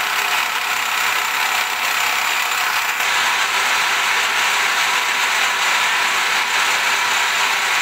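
6 mm end mill on a milling machine at 1800 RPM cutting a keyway into a 4340 chromoly steel billet: a loud, steady cutting noise.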